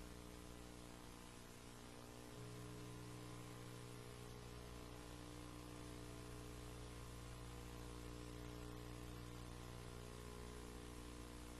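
Faint steady electrical mains hum with background hiss. The hum's tone shifts slightly about two seconds in.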